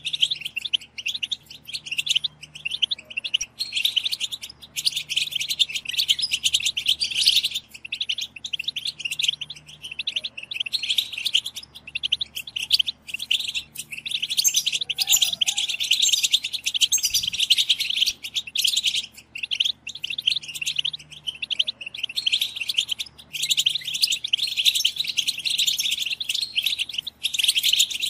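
A group of European goldfinches giving dense, rapid twittering chatter, the call that goldfinch keepers call 'batbata', played to stimulate male goldfinches to sing. The chatter breaks off briefly a few times.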